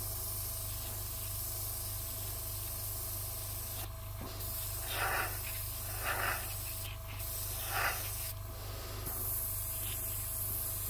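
Gravity-feed airbrush spraying thinned weathering paint with a steady hiss. The hiss stops and starts a few times as the trigger is worked, and three brief louder puffs of air come in the middle.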